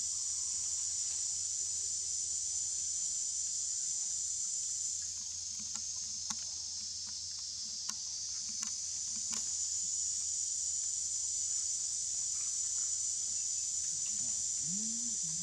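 Steady high-pitched chorus of forest insects, easing off briefly around five to eight seconds in, with a few faint clicks and a short low call near the end.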